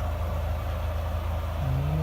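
Engine of a 1995 Nissan Hardbody pickup running steadily, heard from inside the cab as a constant low drone.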